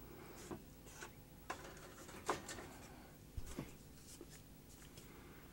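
Faint handling noises from a video recorder's metal chassis as it is moved: a few light clicks and knocks with some rubbing, scattered over a quiet background.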